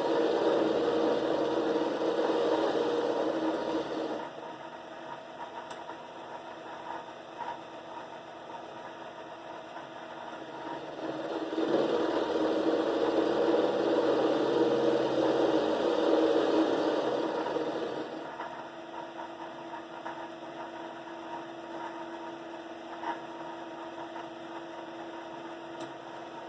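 Shop Fox 6x10 mini lathe running with a steady motor hum. It grows noticeably louder and rougher for a few seconds at the start and again for about six seconds in the middle, then settles back to the quieter hum.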